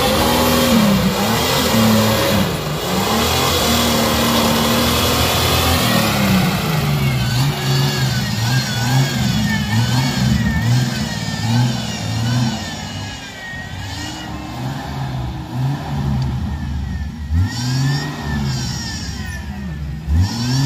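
Engine of a modified Jeep-style off-road 4x4 on oversized tractor-tread tyres, revving up and down again and again as the vehicle crawls over a steep dirt mound, its pitch repeatedly rising and falling.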